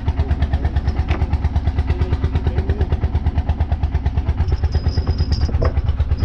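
The fishing boat's engine running steadily with an even, fast thumping of about six beats a second.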